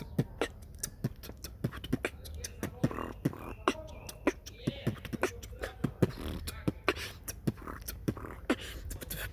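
Balisong (butterfly knife) being flipped: an irregular run of sharp clicks as the handles swing and knock together, about two or three a second.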